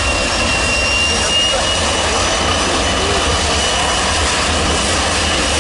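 Jet airliner engines running loud and steady, a dense roar with a thin high-pitched whine on top that rises slightly and then holds.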